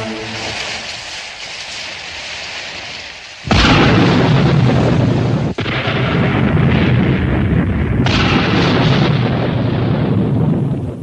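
Cartoon sound effect of a blast of energy: a quieter rushing noise, then about three and a half seconds in a sudden loud rumble like an explosion. The rumble breaks off for an instant, swells again, and falls away near the end.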